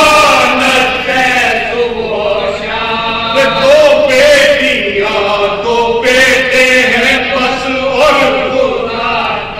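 Soz-khwani: a group of men chanting an unaccompanied mourning elegy together, sung through microphones. Long held notes waver in ornamented runs.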